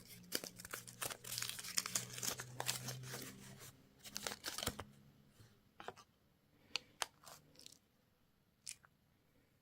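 Crinkly candy packaging being torn open and crumpled, with dense crackling for about five seconds, then a few scattered clicks and taps.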